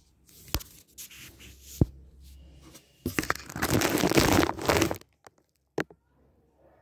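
Clear plastic packaging wrap crinkling and rustling as it is handled, loudest for about two seconds in the middle, with a few sharp clicks before it and one after.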